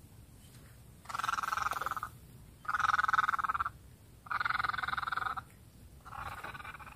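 A frog calling from the flooded rice paddy: four pulsed, rasping calls of about a second each, evenly spaced, the last one weaker.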